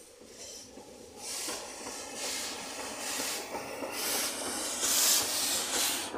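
LMS Black 5 steam locomotive moving off slowly with its cylinder drain cocks open: steady, rhythmic hissing chuffs of steam, about one a second, getting louder as it draws close and passes.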